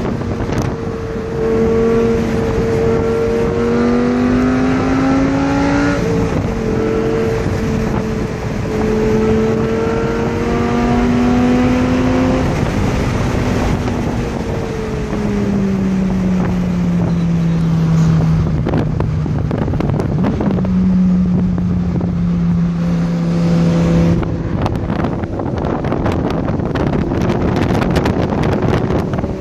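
2006 Lamborghini Gallardo Spyder's V10 with sport exhaust, heard from the open cockpit. The engine pulls up through the revs, shifts about six seconds in and pulls again, then eases off with falling revs and settles into a steady cruise. Wind buffets the microphone in the last few seconds.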